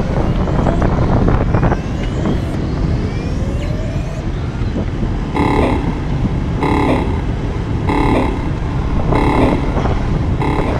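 Wind rumbling on the microphone, then, about halfway through, five short, evenly spaced beeps roughly a second and a quarter apart.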